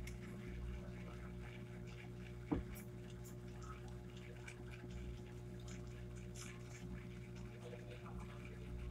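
Coloured pencil scratching on notebook paper in faint, irregular short strokes over a steady low hum, with one sharp knock about two and a half seconds in.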